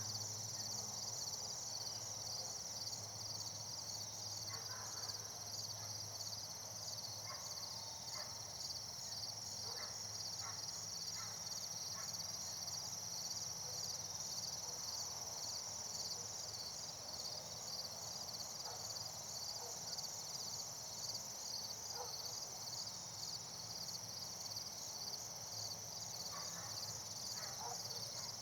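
Steady high-pitched insect chorus of crickets trilling with a fast pulse, with a few faint short chirps or ticks scattered through it.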